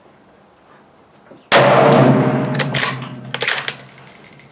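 A single rifle shot from a Ruger American Ranch bolt-action rifle firing igman 7.62x39 ammunition, about one and a half seconds in, loud and sharp with a ringing echo that dies away over about a second. It is followed by a few sharp metallic clicks as the bolt is worked.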